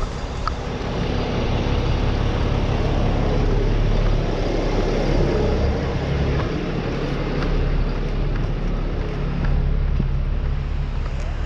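A fire truck's diesel engine idling with a steady low hum, growing louder about a second in as it is approached.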